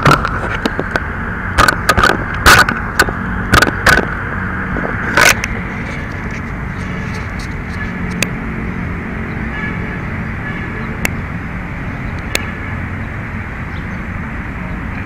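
Sharp knocks and clatters picked up by a camera mounted on a 1:10 RC buggy, about a dozen in the first five seconds, followed by a steady rushing noise with an occasional tick.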